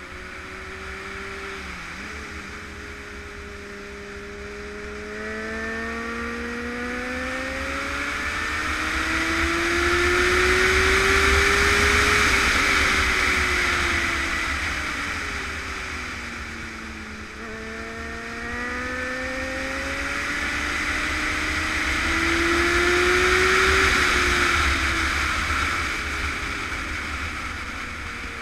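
Onboard Honda motorcycle engine pulling up through the revs over several seconds and easing off, twice, under heavy wind rush on the microphone that swells with speed. There is a deep rumble of wind buffeting throughout.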